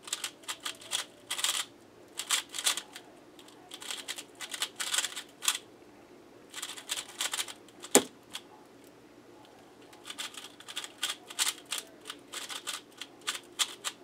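Quick flurries of clicking and clacking from a QiYi Valk 3 speedcube's layers being turned fast during a speed solve. About eight seconds in there is a single sharp knock as a hand slaps the keyboard to stop the timer, then more bursts of cube turning.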